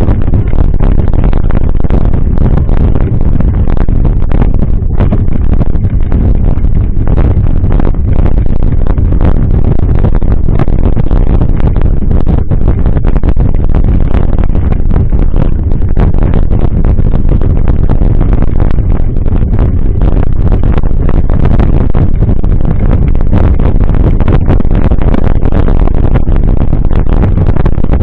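Loud, steady wind rush and rumble on the microphone of a camera riding on a mountain bike, with frequent small knocks and rattles from the rough trail.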